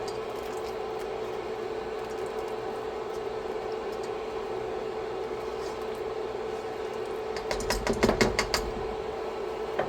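Steady hum; about seven and a half seconds in comes a quick run of clicks and knocks lasting about a second, from cooking utensils handled at the pan of simmering sauce.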